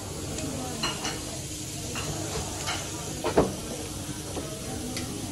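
Knife slicing a grilled steak on a cutting board, with a few sharp knocks of the blade against the board, the loudest a little after three seconds in, over a steady hiss.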